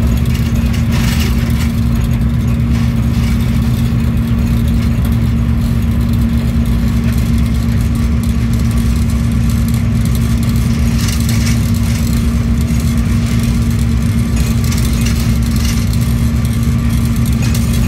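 Diesel-electric locomotive running steadily at line speed, heard from inside its cab: a loud, even engine drone with a strong low hum, over the noise of wheels on track.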